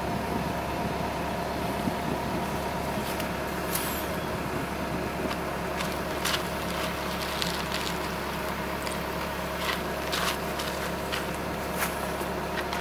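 Excavator engine idling steadily. Over it come a few short clicks and squeaks from a lever grease gun being pumped into a bucket-pin grease fitting.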